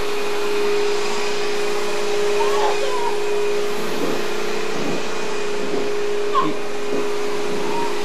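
Vacuum cleaner running steadily: a constant rushing hum with one held tone, unchanging throughout.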